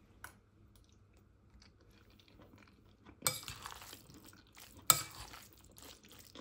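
A metal spoon stirring a wet, mayonnaise-dressed beet salad in a glass bowl. It is quiet at first. About three seconds in, squishing and scraping start, with a sharp clink of the spoon against the glass about five seconds in.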